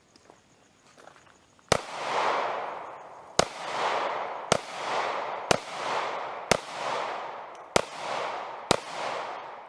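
Ruger LC9S Pro 9mm pistol fired about seven times in an uneven string, roughly one shot a second. Each sharp crack is followed by an echo that fades over about a second. The string starts a little under two seconds in.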